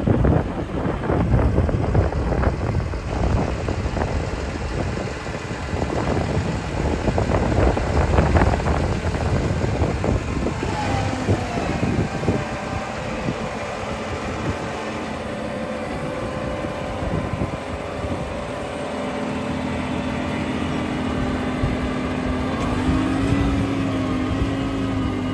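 Tractor engine running while a leek lifter is tried out: rattling and clattering over roughly the first ten seconds, then a steadier engine note that rises slightly near the end.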